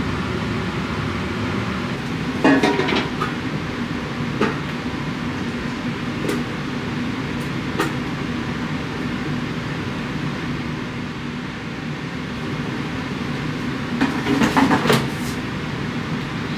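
A kitchen appliance fan running with a steady hum, with a few sharp clicks and two brief bouts of clattering as cookware is handled, one about two and a half seconds in and one near the end.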